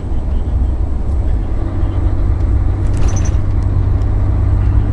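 Cab noise of a Mercedes-Benz Actros 1844 tractor unit driving unladen at road speed: a steady low engine and road drone.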